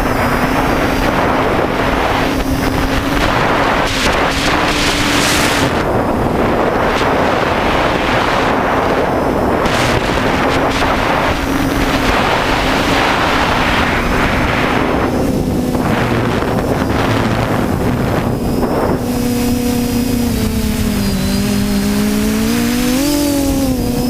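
Multirotor FPV quadcopter's electric motors and propellers humming steadily in flight, with gusts of wind rushing over the onboard microphone. Near the end the wind eases and the motor pitch dips, then rises again as the throttle changes.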